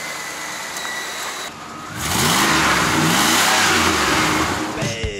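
Steady vehicle running noise, then about two seconds in a loud car engine revving up and down several times over a rushing noise.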